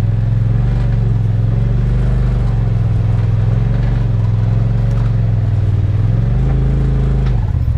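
Polaris RZR Turbo four-seater's turbocharged twin-cylinder engine running at low revs as the side-by-side rolls slowly along. The engine note rises and falls a little, rises again near the end, then drops off just before the end.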